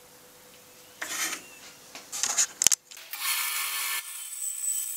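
Hands rubbing and knocking on a bandsaw's table and fence, with a sharp click, then from about three seconds in a bandsaw running with a steady high whine as a board is fed into the blade.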